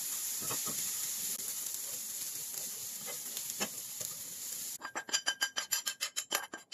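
Diced onion and spring onion sizzling in a little oil in a small pan, stirred with wooden chopsticks. Near the end the sizzle stops, and a metal spoon scrapes and taps against the pan in a quick run of clicks as the onions are scraped out.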